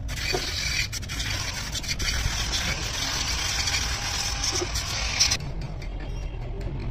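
A steady hiss that cuts off suddenly about five seconds in, over a low, steady rumble.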